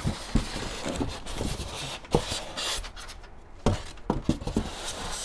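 Cardboard packaging and paper being handled and rustled, with a few light knocks and taps.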